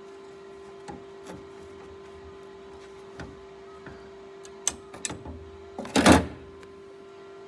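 A few light clicks and taps of metal being handled over a steady hum, then a short crackling burst of a MIG welder arc about six seconds in: a quick tack weld.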